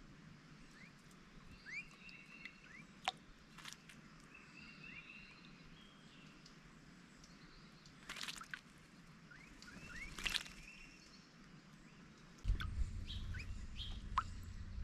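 Rose-breasted grosbeak splashing in a bird bath in two short bursts, about eight and ten seconds in, while small birds chirp throughout. A low steady rumble comes in near the end.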